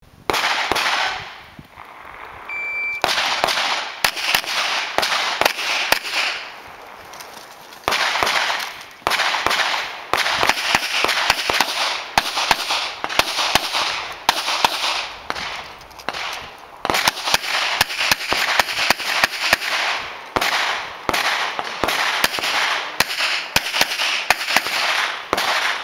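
Pistol fire on a practical-shooting stage. A short electronic shot-timer beep sounds about two and a half seconds in. It is followed by strings of rapid shots, each with a cracking report and echo, broken by brief pauses as the shooter moves and reloads.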